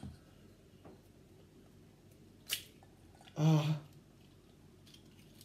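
Raw egg being separated by hand over a bowl: faint handling with a sharp click about two and a half seconds in, and a brief wordless vocal sound from the person around three and a half seconds in.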